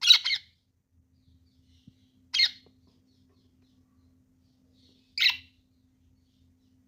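A parrot giving three short, high-pitched calls, each a couple of seconds apart, the first in two quick parts.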